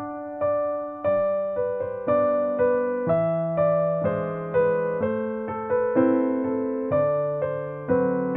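Background music: a slow electric piano tune, notes struck about twice a second over lower chords that change about once a second.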